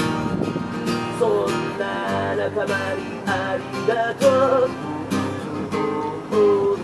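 A song with strummed acoustic guitar and a voice singing the melody, which comes in about a second in.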